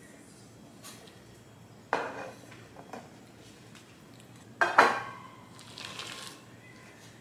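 Aluminium cake pan clanking as it is set down on a hard surface, twice; the second knock is louder and rings briefly. A soft rustle follows.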